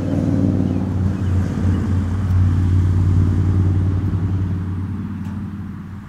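A motor engine running with a steady low drone that swells over the first few seconds and fades toward the end.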